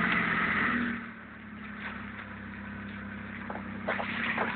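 Vauxhall Calibra's 3-litre V6, just caught on one of its first ever starts: the revs flare for about a second, then settle into a steady idle. A few light clicks near the end.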